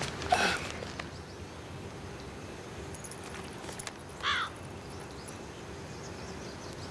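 Two short animal calls, one falling in pitch just after the start and a shorter pitched call about four seconds in, over a faint steady hum.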